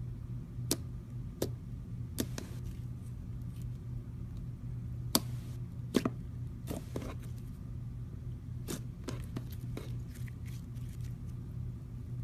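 Clear slime being pressed and stretched by hand, giving irregular sharp clicks and pops, two louder pops about five and six seconds in. A steady low hum lies under it.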